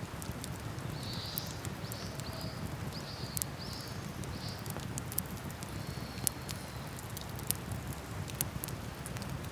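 Wood campfire crackling, with irregular sharp pops and snaps, over a steady low rush of river water.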